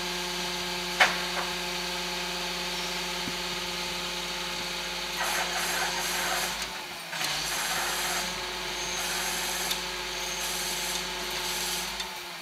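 Rear-loading garbage truck's engine and hydraulic compactor running with a steady whine, with a sharp metal clank about a second in. Rougher, noisier mechanical surges come from about halfway through as the packer works, and the pitch starts to drop at the very end.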